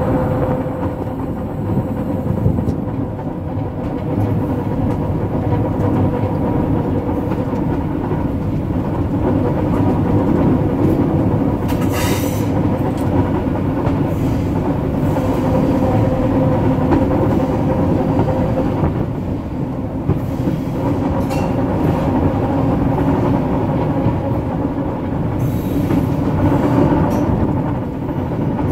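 Diesel train running steadily along rusty, rarely used branch-line track: a constant engine drone over the rumble and clatter of wheels on rail, with a brief high-pitched wheel squeal about twelve seconds in.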